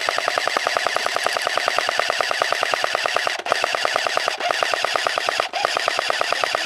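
A&K M249 SAW airsoft electric gun firing one long, continuous full-auto burst: a rapid, even rattle of shots without a break.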